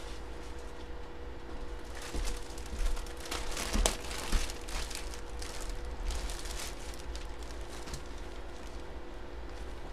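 Plastic packaging crinkling and rustling as it is handled, in clusters through the middle, with a couple of sharp clicks a little before the halfway point.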